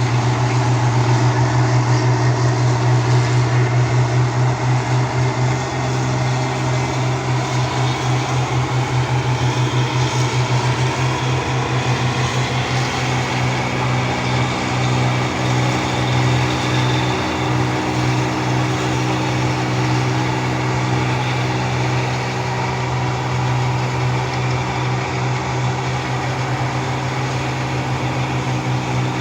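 Rice combine harvester running steadily, its engine giving a loud drone that pulses in the first half, then evens out.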